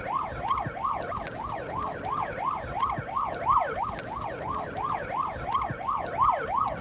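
Police car siren on a fast yelp, its pitch sweeping up and down about three times a second without a break.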